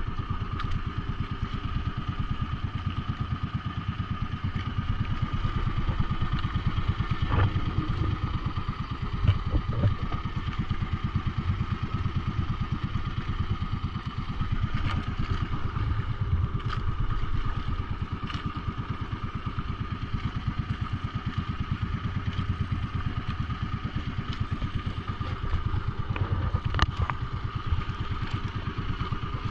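The engine of an outrigger fishing boat running steadily at trolling speed, its fast, even firing pulse unchanging throughout. A few short knocks or clatters stand out over it, around a quarter of the way through and again near the end.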